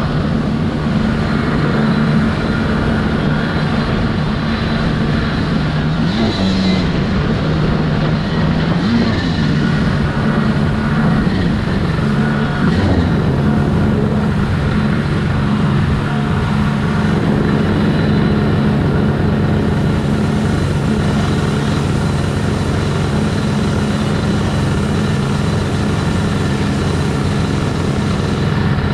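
Stand-up jet ski's two-stroke engine running under way, over the rush of water and spray. Its pitch dips and rises a few times in the first half as the throttle changes, then holds steady.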